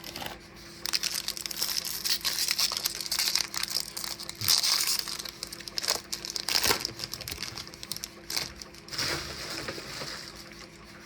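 Foil wrapper of a 2025 Topps baseball card pack being torn open and crinkled by hand, an irregular crackling run with a couple of sharper rips, over a faint steady hum.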